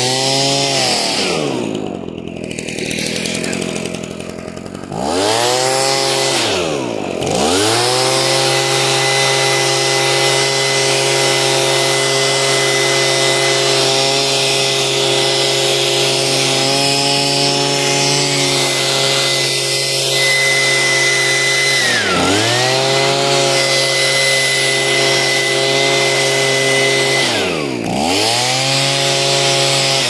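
Gas-powered leaf blower used to blast snow off redwood saplings, its engine running mostly at high throttle with a steady high whine and rushing air. It is eased off and revved back up about four times, near the start, around a quarter of the way in, and twice in the last third.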